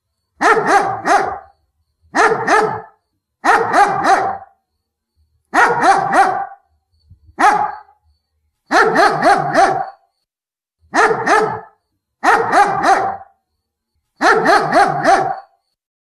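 German Shepherd barking angrily in short volleys of one to four barks, about nine volleys in all, with a second or so of silence between them.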